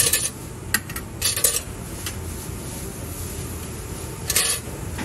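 Metal utensils and dishes clinking against stainless steel trays in a few short, sharp clatters: at the start, around a second in, and again past four seconds, over a steady low background hum.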